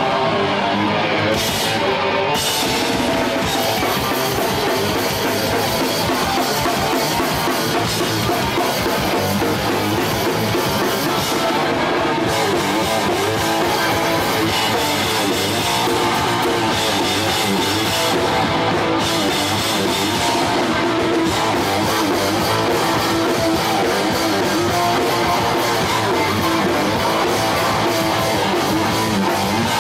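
Live hardcore punk band playing at full volume: distorted electric guitar, bass and a pounding drum kit, loud and dense throughout, picked up by a camcorder microphone on stage.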